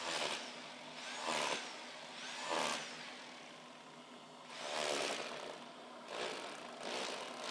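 Rotary hammer with a plugging chisel chipping mortar out of brick joints in short bursts, about six times, each under a second long.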